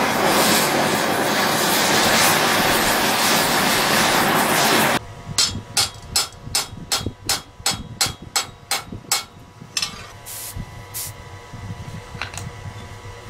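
Oxy-fuel torch hissing steadily as it heats a copper rivet, cutting off abruptly about five seconds in. Then comes a quick run of hammer blows peening the solid copper rivet against the mild-steel ring, about three a second, slowing to a few scattered taps near the end, with the steel frame ringing between them.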